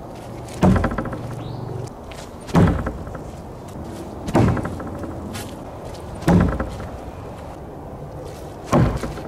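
Glock field knife thrown into wooden fence boards, five solid thunks of the blade striking the wood, about two seconds apart.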